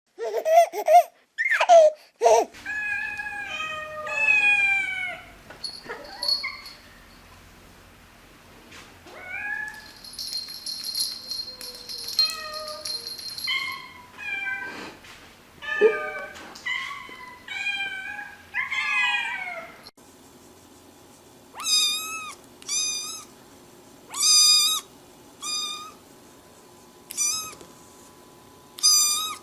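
Cats meowing, one call after another, each call bending in pitch. About two-thirds of the way through, a shorter, higher-pitched meow starts repeating roughly once a second.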